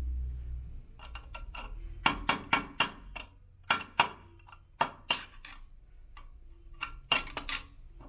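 Hammer tapping on metal parts of an elliptical's crank assembly: about a dozen sharp taps in uneven clusters.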